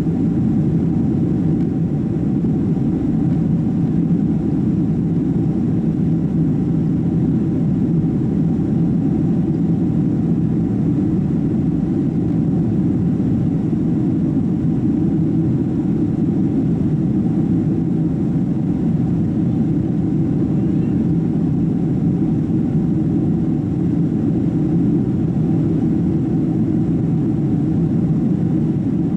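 Steady cabin noise inside a Boeing 767-300 with its jet engines running: a dense, unchanging low rumble with a faint steady hum.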